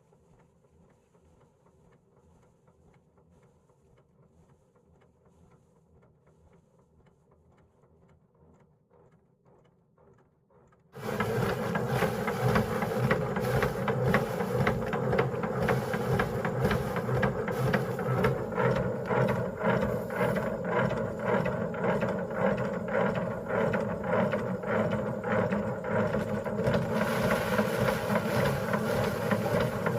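Faint, quiet ticking, then about a third of the way in a loud, steady engine-driven machine comes in suddenly and keeps running.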